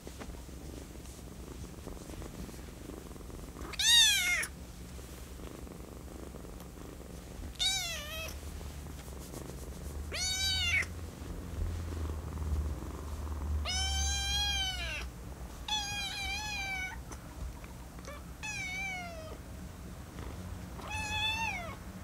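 Small kitten meowing over and over: about seven high mews, each rising then falling, every two to four seconds. The first is the loudest. These are the kitten's demanding cries.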